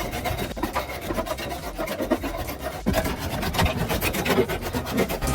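Wood chipper shredding branches: an uneven, rasping grind full of irregular cracks and scrapes.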